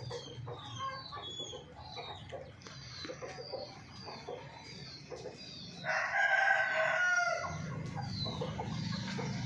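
Chickens calling, with short high chirps throughout and one rooster crow about six seconds in, lasting about a second and a half, the loudest sound. A low hum runs under it at the start and end.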